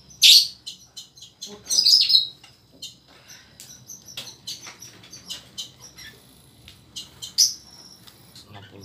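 Birds chirping: many short, high chirps, the loudest about a third of a second in, around two seconds in and near the end.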